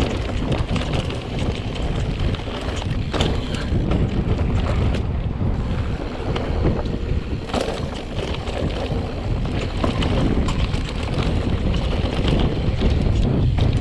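Mountain bike riding on a dirt trail: wind buffeting the microphone over a steady rumble of tyres on dirt, with scattered sharp rattles and clicks from the bike.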